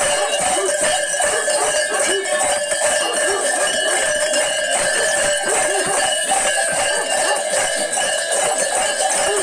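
Metal bells jangling continuously, shaken in a rapid clattering rhythm, with voices underneath.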